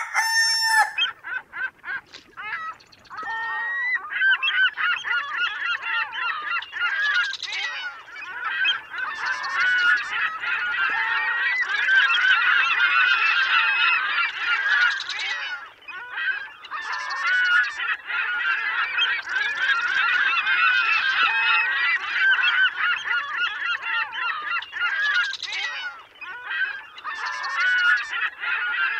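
A flock of birds calling, many calls overlapping, with frequent louder flurries. A brief clear pitched tone sounds at the very start.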